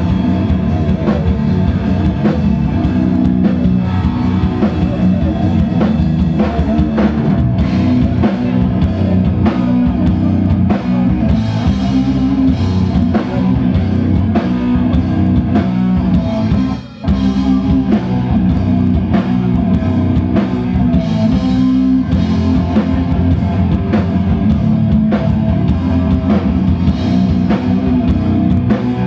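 Live thrash metal band playing: electric guitars and a drum kit, recorded on a phone in the audience. The band cuts out for a split second about 17 seconds in, then comes straight back in.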